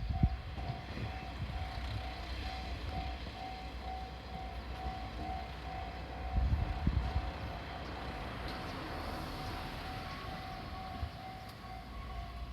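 Japanese level-crossing warning bell ringing in a steady, regular repeating ding over the low rumble of a diesel railcar passing, with a short run of heavier wheel knocks about six seconds in.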